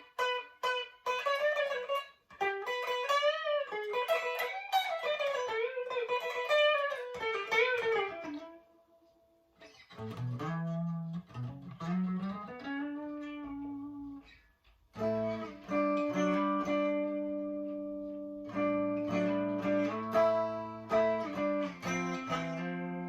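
Chibson Les Paul Custom electric guitar played through a Marshall DSL40 combo amp on a clean tone. It plays a quick single-note lead line with string bends, pauses briefly about eight seconds in, then moves to lower notes and ringing, sustained chords.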